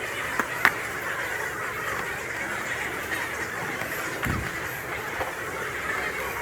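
Indistinct crowd chatter, a steady murmur of many voices, with two sharp clicks in the first second and a short low thump a little past the middle.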